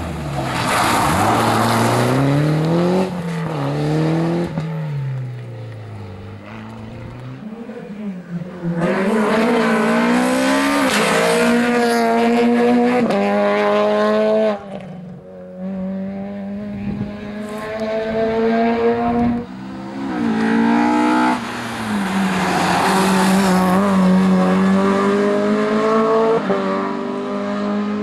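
Rally cars on a special stage, engines revving hard and climbing through the gears with quick shifts and lifts off the throttle. There are three loud spells: near the start, from about 9 to 14 seconds, and again from about 20 seconds on.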